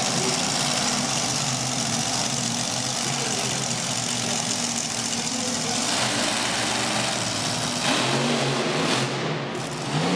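Brutus monster truck's engine running loudly at low revs as the truck creeps across the floor. It is revved up near the end as the truck climbs onto the crushed cars.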